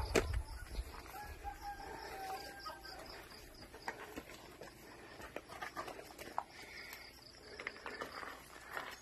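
Rooster crowing: one long call starting about a second and a half in and lasting about a second and a half, with a shorter call near the end and scattered light knocks and footsteps around it.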